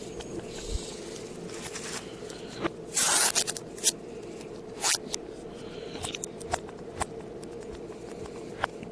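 Blu-ray packaging being handled, played in reverse: scattered clicks and rustles, with a loud rasping burst of plastic tearing or rustling about three seconds in and a shorter one near five seconds, over a steady low hum.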